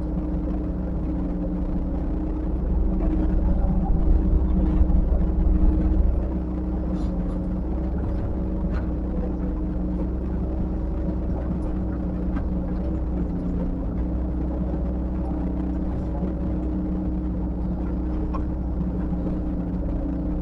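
Diesel engine of a heavy earthmoving machine running steadily with a low rumble, working harder and louder for a few seconds near the start, with a few faint clanks.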